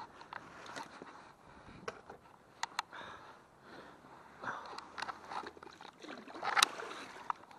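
Hands handling wet gear on a wooden deck: scattered clicks, knocks and scrapes, the loudest knock about two-thirds of the way through.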